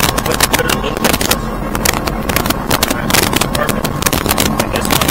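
Light piston airplane engine running, heard inside the cockpit: a steady loud engine noise with a faint constant tone and dense irregular crackling throughout.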